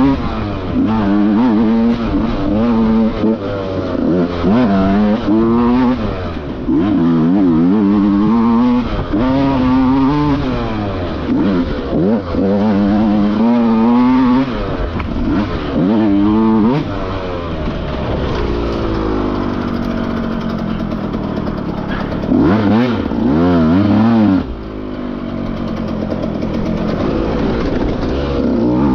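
Dirt bike engine revving hard and unevenly, the throttle opened and closed over and over so the pitch swings up and down every second or so. Partway through the revs ease off and the note falls, then it picks up again.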